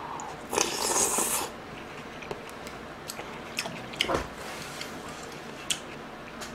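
Close-miked eating of a spoonful of tofu and kimchi stew with rice: a loud hiss of air at the mouth about half a second in, lasting about a second, then chewing with scattered wet clicks and a soft knock about four seconds in.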